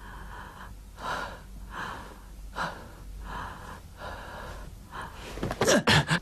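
An elderly woman's short, rasping gasps for breath, a little more than one a second: the labored breathing of a dying woman. In the last second come a few louder, sharper sounds.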